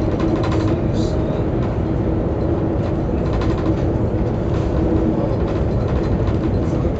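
Cabin noise of a CRH high-speed train running at high speed: a loud, steady rumble with a constant hum.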